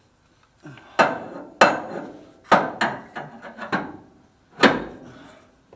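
About five sharp metallic knocks at irregular intervals, each with a short ringing tail, from the steel engine-cradle tubing being struck and worked into place under the car.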